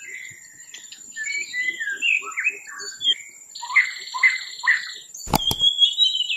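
Birds chirping and singing in a string of short, quickly falling calls, with a buzzy trill in the middle. Two sharp clicks come about five seconds in.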